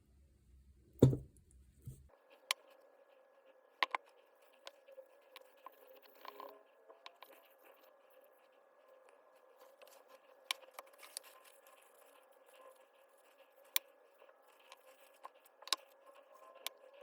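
Hand work on a cordless hammer drill being taken apart: one loud knock about a second in, then scattered light clicks, taps and short scrapes of small parts and tools being handled.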